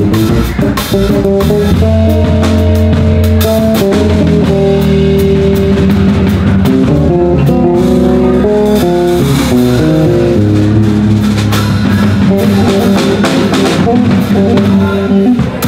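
Live instrumental music from two electric basses, one a six-string, with a drum kit: one bass plays melody lines over the other's low bass line while the drums keep time.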